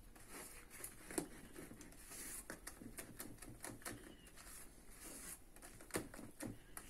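Cake batter being stirred by hand with a utensil in a plastic bowl: faint, irregular clicks and taps of the utensil against the bowl.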